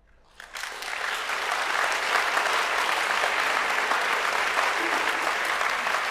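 Audience applauding, breaking out about half a second in and quickly swelling to a steady level.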